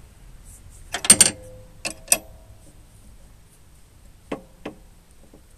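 Metal tools and steering parts clinking as they are handled: a quick cluster of loud clanks about a second in, two clinks that ring briefly just after, and two lighter clicks later.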